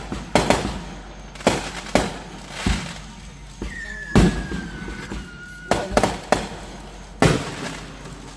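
Aerial firework shells bursting overhead: about nine sharp bangs at uneven spacing, each followed by a short ringing tail. A thin whistle that falls slightly in pitch runs for about two seconds around the middle.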